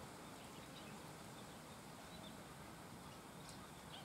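Near silence: faint open-air background with a couple of faint, short, high bird chirps near the end.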